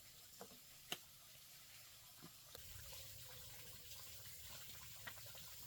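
Faint sounds of water, with scattered small clicks and knocks; one sharp click about a second in.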